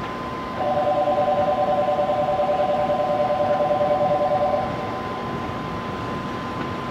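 A two-note warning tone, pulsing rapidly, sounds for about four seconds starting about half a second in, over a steady high electronic hum.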